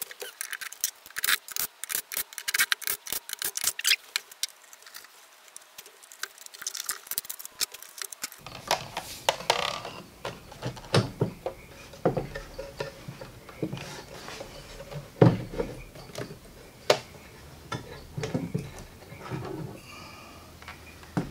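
Handling sounds of a battery module being worked out of its plastic pack case: a quick run of clicks and taps for the first several seconds, then scattered sharp knocks and rubbing as the module is pulled free.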